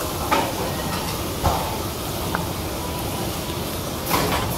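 Food sizzling on a hot teppanyaki steel griddle, with metal spatulas clicking and scraping on the plate a few times. About four seconds in, a short louder burst of hissing as liquid poured from a bottle hits the hot plate.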